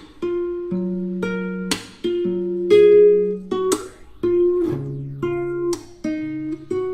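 Background music: acoustic guitar playing sustained plucked chords, with a loud strum about every two seconds.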